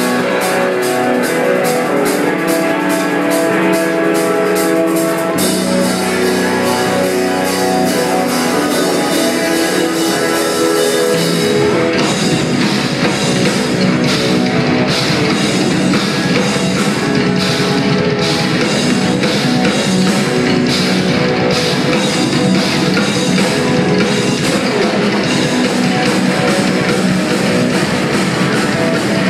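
Live rock band playing loud: electric guitars and drum kit, with evenly spaced cymbal strokes at first, bass filling in about five seconds in, and the full band with fast drumming coming in about twelve seconds in.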